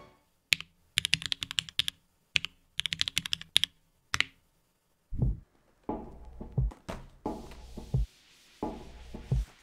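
Mechanical keyboard typing in three quick runs of sharp clicks. After a short pause, several separate dull thumps and knocks follow.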